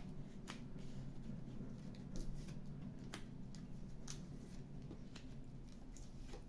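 Faint, irregular small clicks and ticks, a few seconds apart, over a low steady hum.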